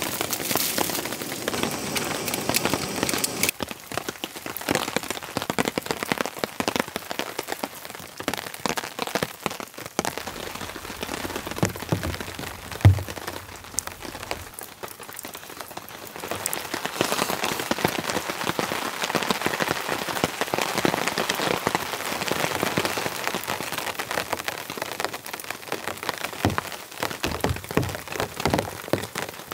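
Rain falling on a tarp overhead: a dense, steady patter of many small drop hits, with one thump about halfway through. A packet crinkles in the first few seconds.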